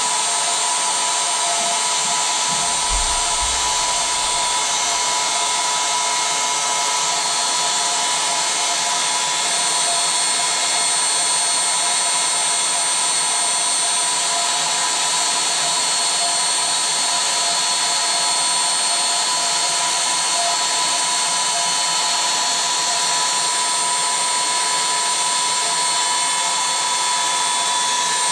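Electric air pump running steadily, a whine over rushing air, filling an inflatable. A brief low thud about three seconds in.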